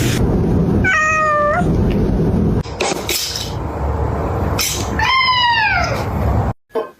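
Domestic cat meowing twice over a steady low background noise: a level, slightly rising meow about a second in, then a longer meow falling in pitch about five seconds in.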